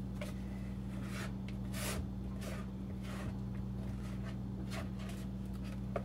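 Red spatula scraping a pale egg-and-cream mixture out of a plastic bowl as it pours into a pot, a soft stroke every half second or so. A steady low hum runs underneath.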